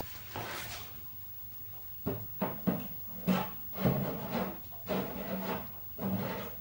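A heavy neodymium magnet being shifted and rubbed around on the plastic cabinet of a CRT TV, making irregular scrapes and dull knocks from about two seconds in. A sharp click comes at the very start.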